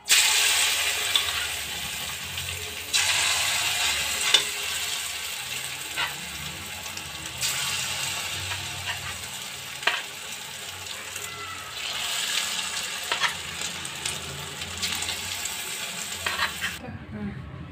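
Batter-coated boneless chicken pieces deep-frying in smoking-hot oil in a kadhai: a steady sizzle with scattered pops and crackles. It cuts off suddenly shortly before the end.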